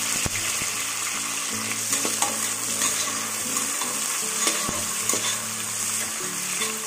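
Sliced onions and green chillies sizzling in hot oil in an aluminium pressure cooker, stirred with a ladle that clicks and scrapes against the pan a few times.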